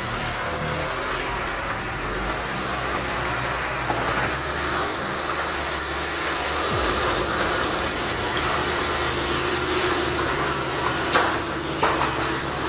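Heavy forestry machine's engine running steadily. Several sharp cracks sound near the end.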